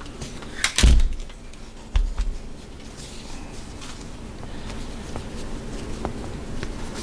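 Handling noise from an AR-15 rifle being laid down on a rubber bench mat: a thump about a second in and another at two seconds. Then quieter rustling of the nylon sling webbing.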